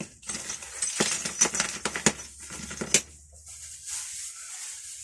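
Parcel packaging being torn and unwrapped by hand: a busy run of crackling and scraping rustles for about three seconds, then quieter handling.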